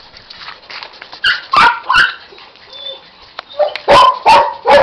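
Dog barking: six short, sharp barks in two bursts of three, the first starting about a second in and the second near the end.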